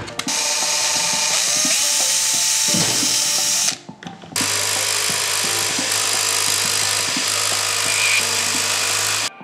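A power tool runs in two bursts, stopping briefly about four seconds in. The second burst is an electric jigsaw cutting through MDF sheet.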